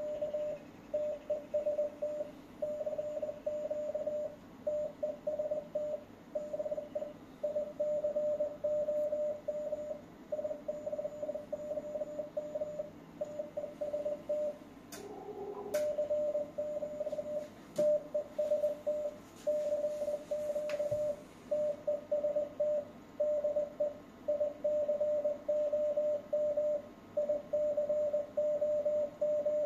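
Transceiver's CW sidetone, a steady tone of about 600 Hz keyed on and off in short and long pieces like Morse code, while the transmitter drives the HF linear amplifier to about 1 kW output. About halfway through, the keying pauses for a second with two clicks and a brief pair of other tones.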